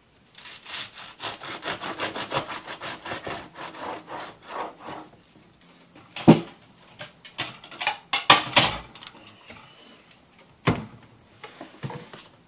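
Knife sawing back and forth through toasted bread and lettuce of a BLT sandwich, a quick run of rasping, crunching strokes for about five seconds. A few separate knocks and clunks on the cutting board follow in the second half.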